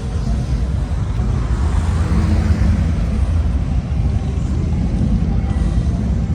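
Motorcycle engines running with a steady low rumble, the noise swelling a little about two to three seconds in as a bike passes.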